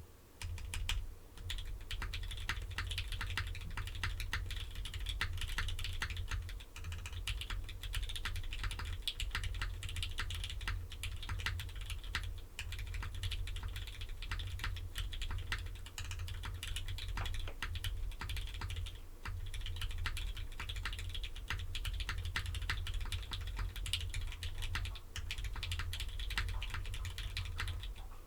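Continuous typing on a Phantom mechanical keyboard with Gateron Red Ink linear switches, lubed with Krytox 205g0 and fitted with TX films, on an FR4 plate with no foam, capped with GMK doubleshot ABS keycaps: a dense run of keystrokes with a few short pauses.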